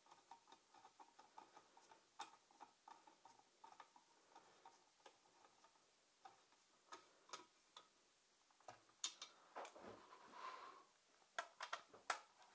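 Ratcheting screwdriver clicking faintly as it tightens the pull-start bolts on a small two-stroke engine, a few clicks a second. Near the end come a few louder clicks and a brief rustle.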